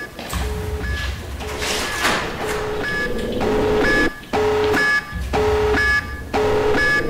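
Electronic soundtrack: short beeping tones alternating between a low and a high note, one every half second, over a deep pulsing bass. It grows louder and steadier about three seconds in.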